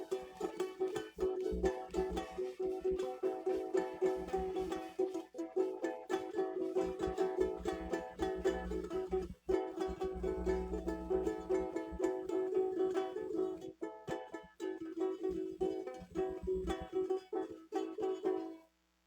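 Acoustic guitar strummed quickly and continuously on one chord, then breaking off shortly before the end.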